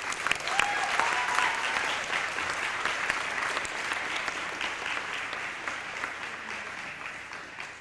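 Audience applauding, with dense clapping that is loudest about a second in and slowly dies down.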